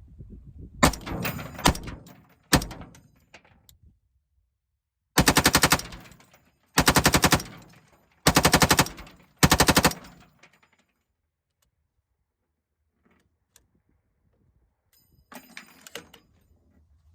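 Lima6 belt-fed AR-15 upper firing four short bursts of automatic fire, each under a second long and about a second apart, after a few clacks in the first seconds. The belt feeds and fires without a stoppage.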